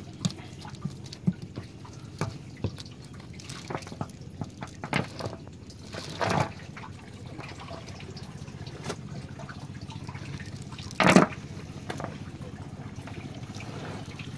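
Wet fishing net being handled on a wooden boat deck: scattered drips and light ticks of water, with two brief louder bursts about six and eleven seconds in, the second the loudest.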